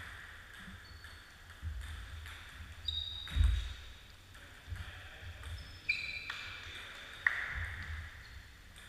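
Table tennis ball clicking on the table and paddles: several irregular sharp clicks, each with a short ringing tail and the echo of a large hall, the loudest about three and a half seconds in. Dull low thumps come and go underneath.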